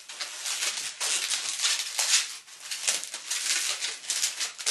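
Latex modelling balloons rubbing against each other and against her hands as a 260 is twisted and wrapped around a pinch twist: a scratchy rustling in uneven surges.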